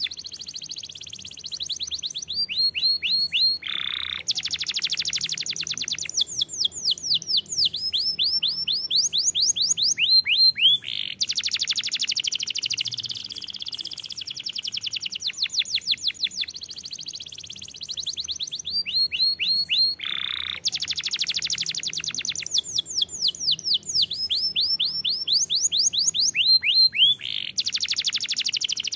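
Domestic canary singing a long, unbroken song of rapid trills and rolls and fast runs of repeated downward-sweeping notes, with a short buzzy note about four seconds in and again about twenty seconds in; the same passage of song comes round twice.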